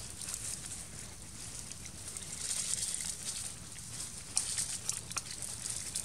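Dry leaf litter rustling and crackling in short bursts as macaques shift about on it, over a steady outdoor background.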